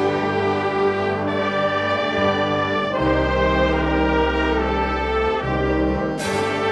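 Concert wind band playing sustained, brass-led chords, with a deep bass note held in the middle. A sharp percussion crash comes near the end as a new chord enters.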